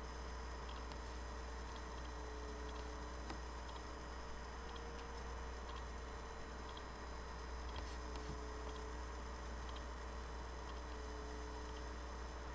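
Faint steady low hum under a light hiss, with scattered faint ticks; no fiddle playing is heard.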